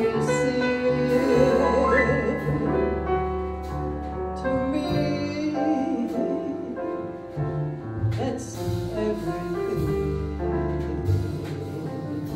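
Live jazz: a woman singing long held notes with vibrato, backed by a small band with piano and double bass.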